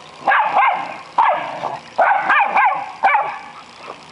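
Small dogs barking in play: a run of short, high-pitched barks, several in quick succession.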